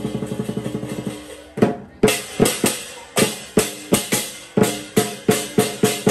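Percussion playing: drums beaten in a fast, even roll, then from about a second and a half in, separate loud strokes at roughly two to three a second.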